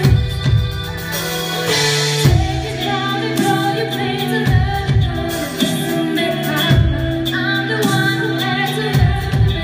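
Live pop band playing: a woman sings into a microphone over electric bass, electric guitar, keyboards and drums, with a kick drum marking a steady beat about once a second.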